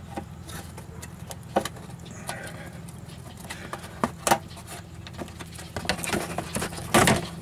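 Plastic retaining clips being pried out of a 2006 Cadillac SRX's engine-bay cowling: scattered clicks, snaps and small rattles of tool and clips, with the loudest clatter near the end, over a steady low hum.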